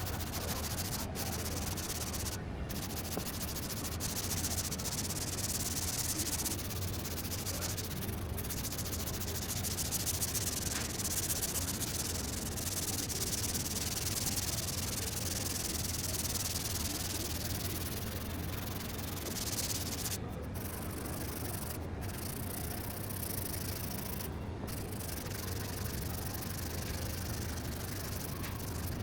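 Sanding body filler on a car door: a steady, hissing abrasive rub over a low hum, broken by a few brief pauses about two-thirds through.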